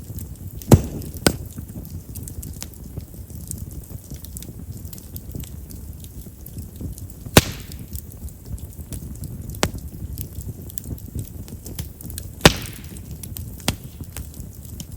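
Chestnut-log campfire burning with a low steady rumble of flame and sharp crackling pops, three of them loud (near the start, about halfway, and a few seconds before the end) and several smaller. Chestnut wood is known for popping because of its large pores.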